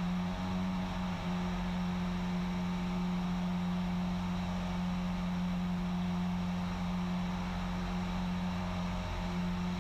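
Cessna 177RG Cardinal's engine and propeller droning steadily inside the cabin: one steady low hum with fainter overtones above it and a constant rush beneath. The engine is at climb power on a missed approach, the airplane climbing out of cloud.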